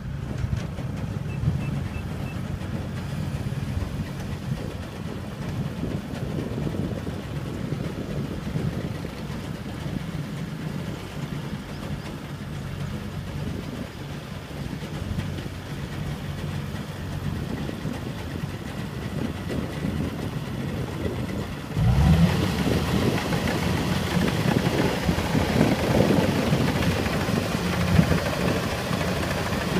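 Engine of a small crawler rice combine harvester running steadily as the machine crawls along. About three-quarters of the way through it turns suddenly louder and harsher, as the combine drives into the standing rice.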